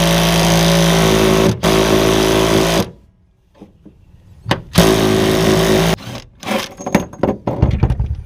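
Cordless drill spinning a bolt to draw up and set a rivet nut in the truck bed. It runs in one long pull of about three seconds, then a shorter pull of about a second, then a few quick trigger bursts as the rivnut snugs tight.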